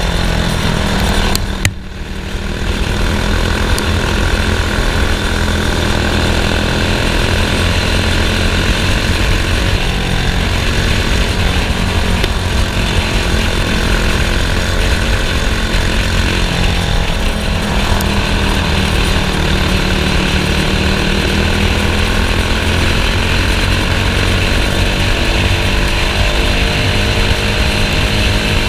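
Racing kart engine running hard at speed, its pitch rising and falling gently with the revs. It dips briefly about two seconds in, then carries on steadily.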